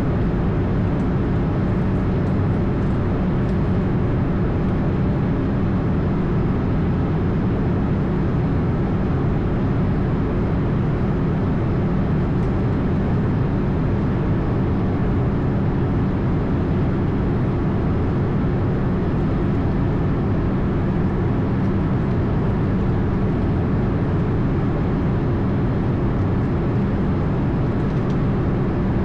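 Steady flight-deck noise of an Airbus A220: engine and airflow noise that holds level, with a low hum around 200 Hz and no changes.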